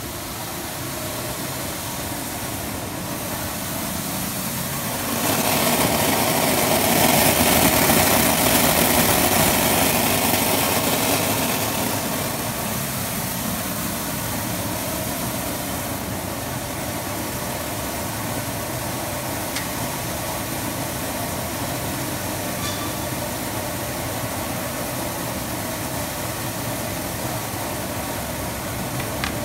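Optical colour sorter running a primary sort on oats, removing hulls and black grains: a steady mechanical hum and hiss of its vibratory feeders, grain flowing down the chutes and air-jet ejectors. It is louder for several seconds from about five seconds in, then settles to a steady level.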